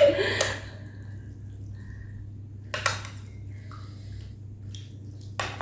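Eating utensils knocking against a bowl of noodle soup: two short clinks, one about three seconds in and one near the end, with faint small scrapes between, over a steady low hum.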